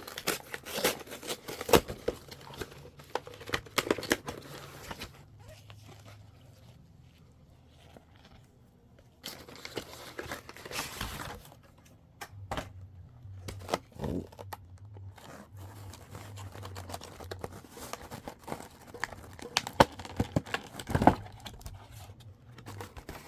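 Pokémon card blister pack being torn open: cardboard and plastic packaging tearing and crinkling in irregular bursts, with a quieter pause midway.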